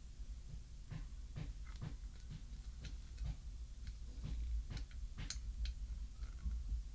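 Irregular light clicks and taps as the parts of a smart door lock are handled and fitted together while its wire is fed through, over a steady low hum.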